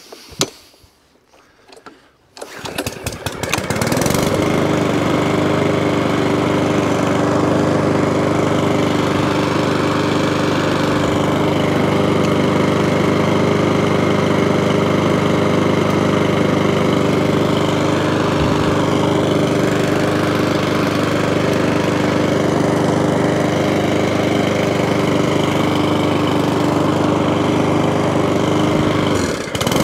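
Mountfield 414 lawnmower engine pull-started; it catches about two seconds in and then runs at a steady speed without hunting or surging, its carburettor freshly cleaned. There is a short dip in the engine's note near the end.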